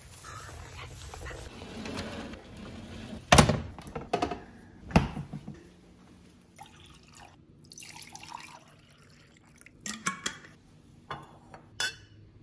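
Household handling sounds: a plastic mailer bag rustling, two loud knocks about a second and a half apart, then scattered clinks and water being poured into a glass tumbler near the end.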